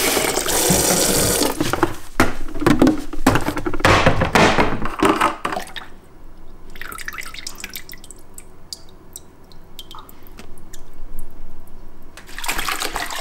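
Tap water running into a plastic mop bucket, breaking up and stopping about six seconds in. Then quieter drips and small splashes as liquid cleaner is poured into the water, with a louder rush of water again near the end.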